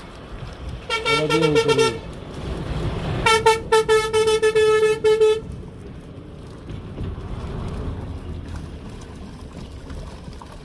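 A vehicle horn sounding in two loud, pulsing blasts at one steady pitch: a one-second blast, then a longer one of about two seconds. Water is splashing underneath.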